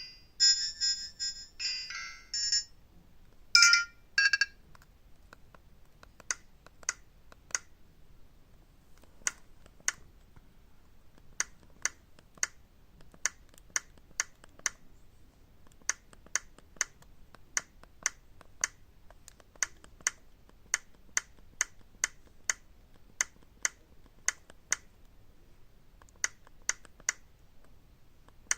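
Alcatel OT-1016D mobile phone sounding a short electronic beep melody, then a brief tone burst, followed by a long run of short sharp keypad clicks, about two a second in small groups with pauses between.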